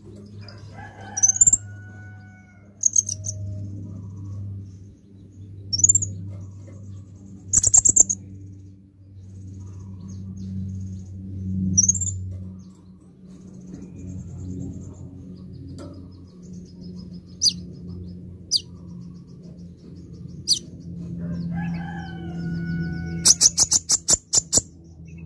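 Copper-throated sunbird giving short, sharp, high chirps every second or two, ending in a quick rattle of ticking notes near the end. A lower drawn-out call sounds at the start and again near the end, over a steady low hum.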